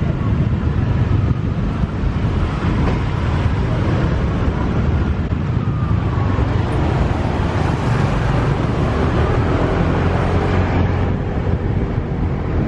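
Motorcycle taxi riding along a busy town street: steady engine and road noise heard from on the bike, with a heavy low rumble and passing traffic.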